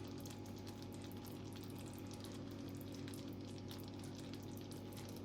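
Thick jaggery syrup with ginger paste sizzling and bubbling faintly in a pan over a low gas flame, a fine steady crackle, with a steady low hum underneath.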